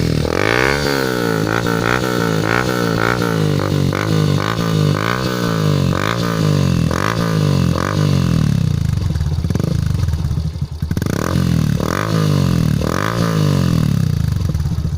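Yamaha FZ-S V2.0's single-cylinder engine revved through an aftermarket silencer: quick repeated throttle blips, about two a second, rising and falling in pitch. About eight seconds in, it drops back toward idle, then takes a few more blips near the end.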